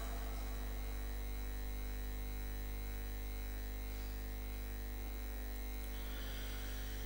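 Steady electrical mains hum from the microphone and amplification system, at a low, even level.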